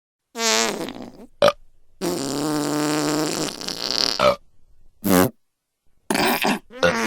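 A string of separate fart sound effects, about six with short silences between: a half-second one at the start, a tiny one, a long steady-pitched one of about two seconds, then several short ones near the end.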